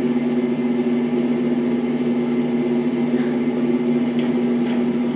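A steady, loud hum held on one low pitch with fainter overtones, unchanging throughout.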